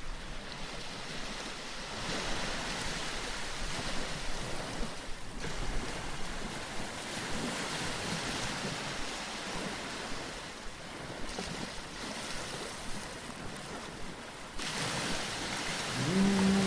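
Sea waves washing in and drawing back, the sound swelling and easing every few seconds. Near the end a low steady tone slides up and holds.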